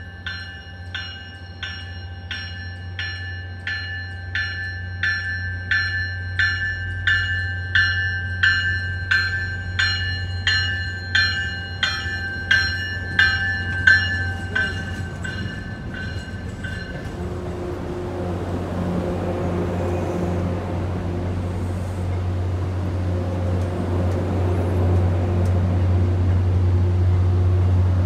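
MBTA commuter rail train arriving: its warning bell rings about twice a second and stops about 17 seconds in. A steady low diesel drone runs underneath and grows louder toward the end as the locomotive comes alongside.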